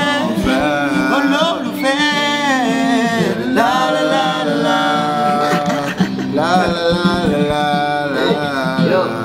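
A man singing long, drawn-out wordless vocal runs with wavering held notes, in several phrases, over acoustic guitar.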